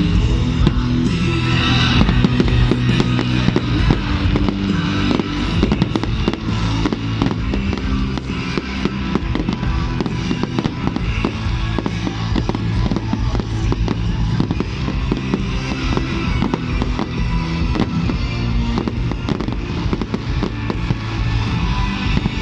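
Fireworks display going off continuously, a dense run of bangs and crackles, over music with a steady bass line.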